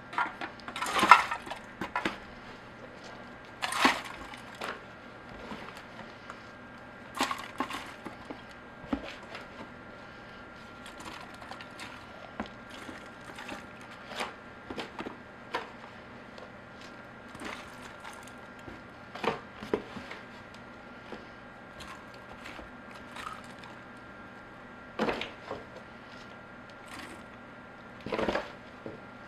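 Sawdust being scooped and poured into a container around upright soda cans. It makes irregular rustling and scraping strokes, the louder ones spaced a few seconds apart.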